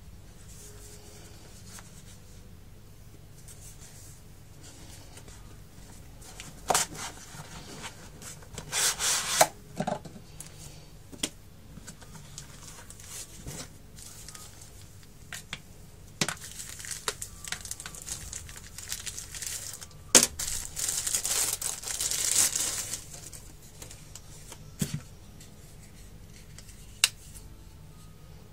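Knife packaging being handled: rustling and crinkling of a plastic bag and the cardboard knife box, in two louder spells, with scattered sharp clicks and taps. The first several seconds are nearly still.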